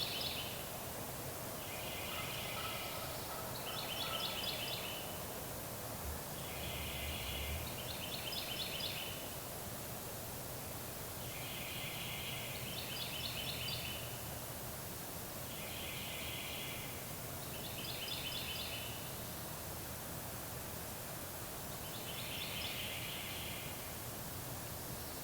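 Wild turkey gobbling: six rattling gobbles, each a quick double burst, about every four seconds, over a steady hiss of wind.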